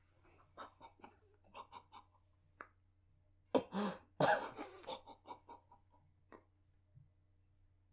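A man coughing behind his hands: a run of short muffled coughs, with two louder ones about halfway through.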